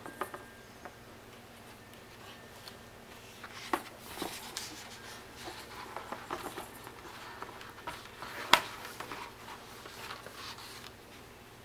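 A small child handling and turning the pages of a hardcover picture book: faint rustles and soft taps, with a sharper tap about three and a half seconds in and the loudest one about eight and a half seconds in.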